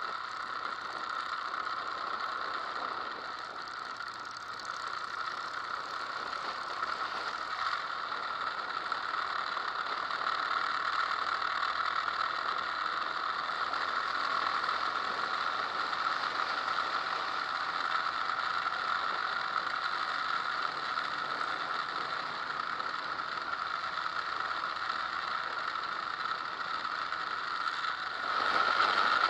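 Steady rushing wind and road noise picked up by an action camera mounted on a moving motorcycle, with no clear engine note. It grows louder near the end.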